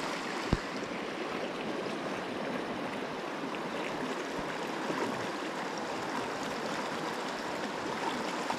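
Shallow stream running over a riffle, a steady rushing wash of water, with a single short knock about half a second in.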